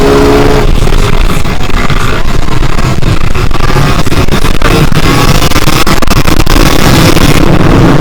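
Yamaha YZ125's two-stroke single-cylinder engine running hard, its revs rising and falling, with several sharp knocks in the middle.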